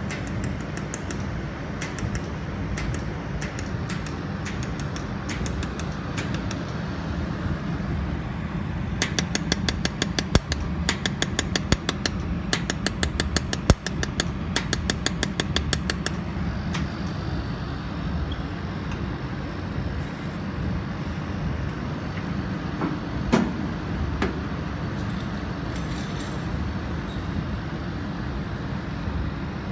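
Jewelry laser welding machine firing pulses: sharp clicks, scattered at first, then a fast even run of several a second in the middle, with a few single clicks later. Under them runs the steady hum of the welder's and chiller's cooling fans.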